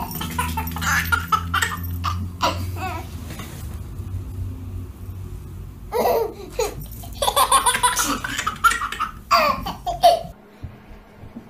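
A baby laughing in repeated bursts, over a steady low hum that cuts off near the end.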